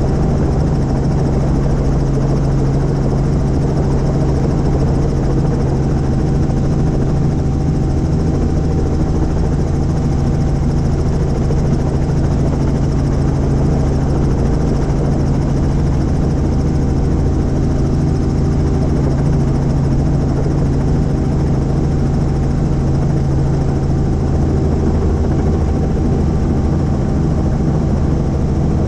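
Helicopter's engine and rotor running steadily: an even, unbroken drone with a constant low hum.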